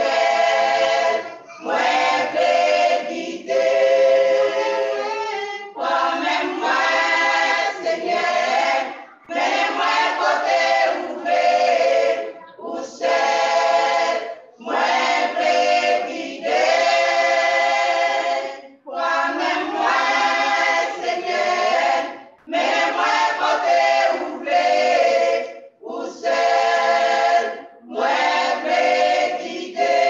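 A choir singing a Christian worship song a cappella, in phrases of a couple of seconds with short breaks between them and no instruments.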